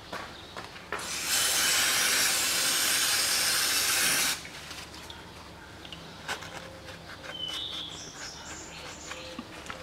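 Aerosol spray can hissing in one steady burst of about three seconds that starts about a second in and cuts off suddenly, then a rag rubbing and a few light knocks while the oily sump is wiped.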